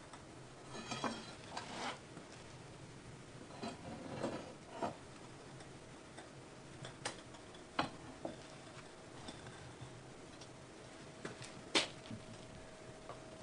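Scattered light metal clinks and knocks from a steel bar being worked in the head of an old screw-type basement support jack to loosen it. The sharpest knock comes near the end.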